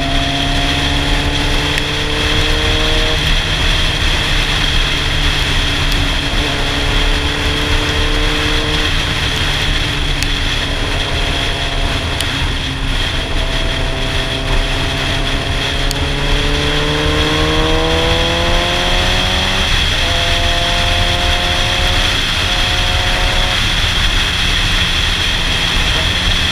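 Sportbike engine heard from the rider's seat while cruising, its pitch rising and falling with the throttle. The pitch climbs steadily for a few seconds under acceleration, then drops suddenly as he shifts up, all over a steady rush of wind.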